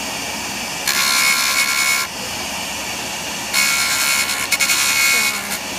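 A stone is ground against a spinning 250-micron diamond flex disc on a Jooltool lapidary machine, with the machine running steadily. There are two spells of harsh grinding with a high whine, about a second in and again from about three and a half seconds until near the end, as the stone's edge is tapered to form a girdle.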